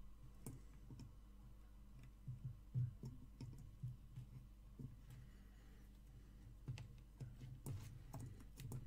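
Faint, scattered small clicks and taps of a soldering iron tip and component leads against a through-hole circuit board as joints are soldered, with a cluster of clicks near the end, over a low steady hum.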